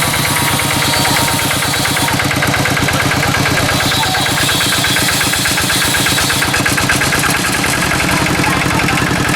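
An engine idling steadily with a rapid, even beat.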